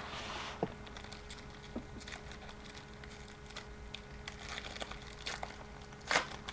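Foil wrapper of a baseball card pack being handled and torn open: scattered small clicks and crinkly rustles, with a louder crinkle near the end, over a faint steady hum.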